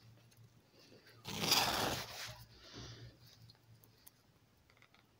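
Thick cowhide being drawn through the blade of a hand strip cutter (sacatientos), a rasping scrape of leather splitting that lasts about a second, starting a little over a second in, with a shorter, softer scrape soon after.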